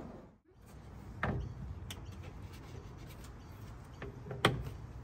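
Hands working at an old car's battery: a few light knocks and ticks, and a sharp click about four and a half seconds in as the terminal clamp is handled, over a low steady rumble.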